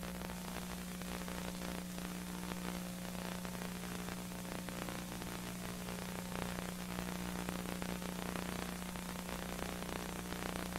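Steady hiss with a constant low hum underneath: the background noise of an old videotape transfer, with no sound effects or music.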